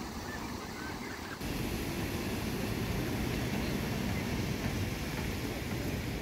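Steady outdoor ambient noise of a wet city street, an even hiss with no clear single source. It steps up suddenly in loudness about a second and a half in.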